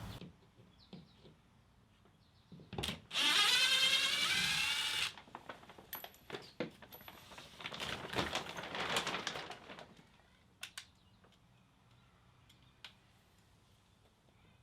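A cordless drill/driver whirs for about two seconds, its pitch wavering as it backs out a screw holding up a plastic tarp. Scattered clicks and a second, noisier stretch of handling follow.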